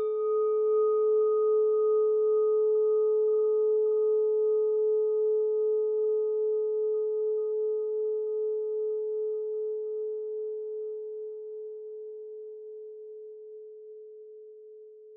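A singing bowl struck once at the start of a meditation, ringing one low clear tone with fainter higher overtones that die away first. It fades slowly with a gentle pulsing wobble.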